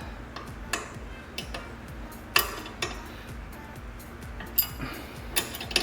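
A 17 mm wrench and Allen key clinking against a sway bar end link's nut and stud as the nut is tightened by hand: scattered sharp metallic clicks, about one every second.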